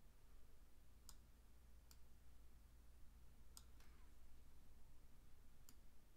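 A few faint computer mouse clicks, irregularly spaced, two of them close together in the middle, over a low steady hum.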